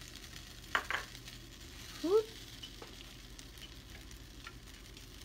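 Egg and cheese on bread sizzling faintly in an oiled frying pan, with fine crackling throughout. There are a couple of light clicks just under a second in and a short rising squeak at about two seconds.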